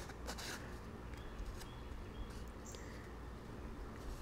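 Old putty knife scraping and stirring two-part JB Weld epoxy on a scrap of cardboard, a few strokes near the start, then quieter. A few faint high chirps and a low steady hum sit underneath.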